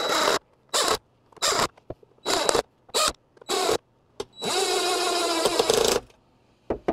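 Craftsman cordless driver running screws into a robot vacuum's plastic case: six short pulses about every two-thirds of a second, then one steady run of about a second and a half.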